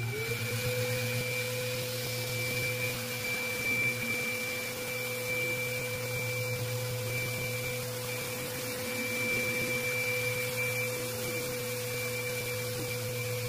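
Mirka random orbital sander spinning up and then running steadily on an epoxy resin tabletop, a steady motor whine over the rush of the pad on the resin.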